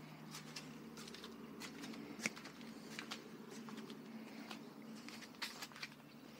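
Footsteps on an asphalt driveway, a faint run of irregular scuffs and clicks, over a steady low hum.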